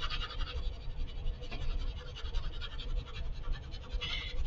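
HB graphite pencil shading on paper: rapid, even back-and-forth scratching strokes, with a brief sharper scratch near the end.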